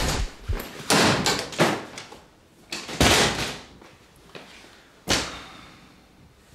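A house's front door being opened and shut: a run of knocks and bangs, the loudest about three seconds in, and a last sharp thud about five seconds in.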